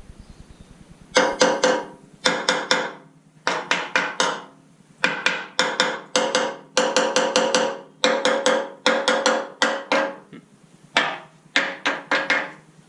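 Hammer blows on steel, struck in quick runs of several blows with short pauses between, each blow ringing the metal.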